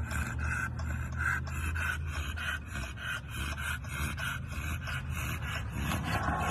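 An American Bully dog panting hard with its tongue out, a fast, rasping rhythm of several breaths a second, over a steady low hum.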